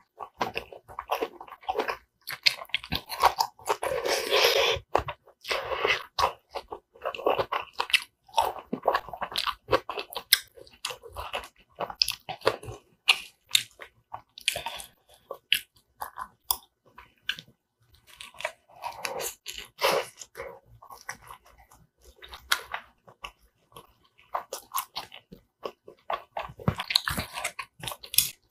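Close-miked eating sounds: wet chewing and biting of soft braised kimchi, rice and seasoned laver, with irregular short clicks from the wooden spoon and chopsticks.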